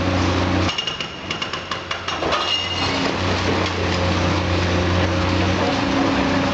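Demolition excavator's diesel engine running steadily. About a second in, the engine hum drops away for a couple of seconds under a run of sharp knocks and clatter of concrete and masonry breaking, then the engine comes back.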